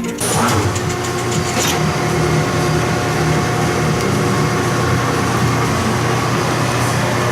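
Old metal lathe starting up and then running steadily, with a continuous low motor hum and a faint steady higher tone.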